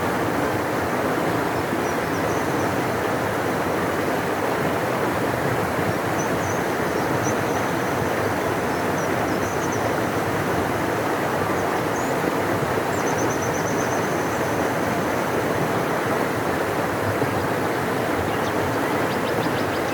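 A large river rushing steadily, with faint high bird chirps now and then and a quick trill near the end.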